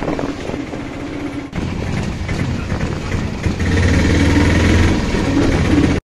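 An engine running steadily, getting louder about three and a half seconds in.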